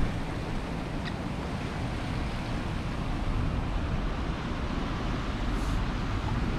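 Princess F70 motor yacht under way at low speed: a steady low rumble from its engines and water moving along the hull, with wind on the microphone.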